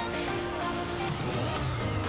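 Background music, with a sweeping tone coming in near the end.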